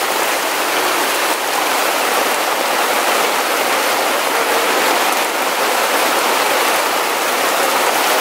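Torrential tropical downpour: dense, steady rain falling on a tarp overhead and on the forest floor, with water streaming off the tarp's edge.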